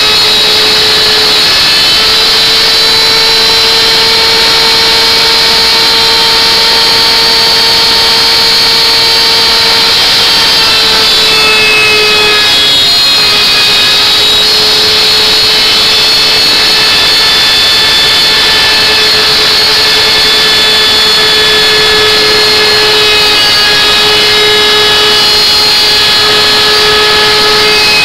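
Electric wood router running at full speed, a loud steady high-pitched whine. Its pitch sags slightly a couple of times as the bit takes load cutting the wood.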